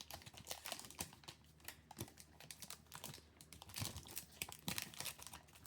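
Faint crinkling and light clicking as a trading-card pack wrapper is opened and the cards are handled.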